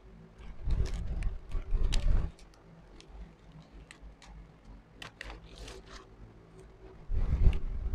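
A sheet of sticker labels rustling and crackling as it is handled and a label is peeled off, with sharp paper ticks in the middle. Two stretches of low rumbling handling noise, one about a second in and one near the end.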